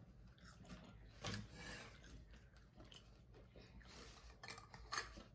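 Near silence, with faint chewing and a few small clicks and taps of handling at the table.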